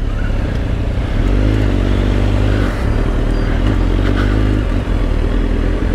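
2004 Kawasaki ZX-10R's inline-four engine pulling away from a standstill, the sound building over the first second and then holding steady with a heavy low rumble.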